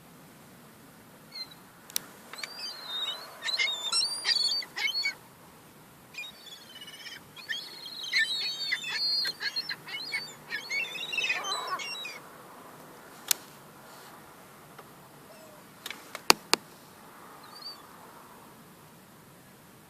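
Young gulls squabbling, with bouts of high, wavering squealing calls during the first twelve seconds, then a few sharp clicks.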